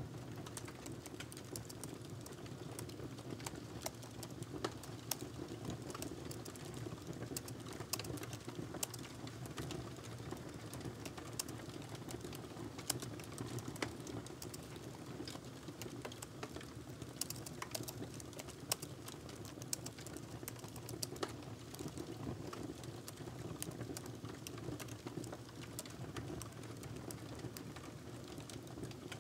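Typing on a laptop keyboard: quick, irregular key clicks, with a steady low hum beneath.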